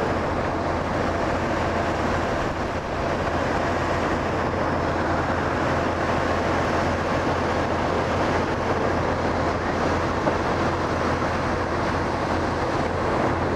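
Steady drone of heavy diesel machinery running without pause: the concrete pump truck and the volumetric mixer feeding it, with a constant low hum under it.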